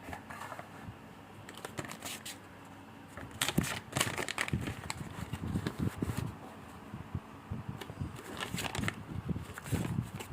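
Irregular crinkling and rustling of packaging being handled, with scattered clicks and knocks. It is sparse at first and gets busier from about three seconds in.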